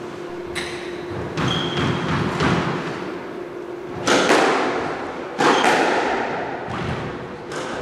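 Squash rally: the ball is struck by rackets and hits the court walls, a string of sharp thuds about a second or so apart, each ringing on in the walled court.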